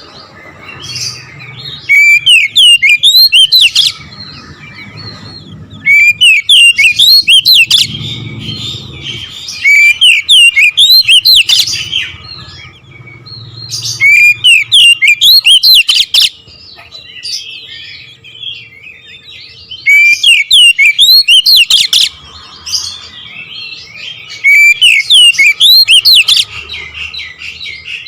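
Oriental magpie-robin (kacer) singing in loud, rapid two-second bursts of sweeping whistled notes, about one every four seconds, with softer twittering in between: the hard-hitting 'nembak' style of song that keepers prize.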